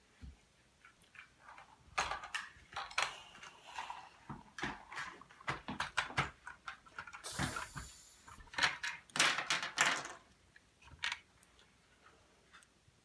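Plastic LEGO pieces and minifigures being handled on a tabletop: irregular clicks, taps and short clattering and rustling sounds as a toy van and figures are moved and fitted together, busiest in the middle.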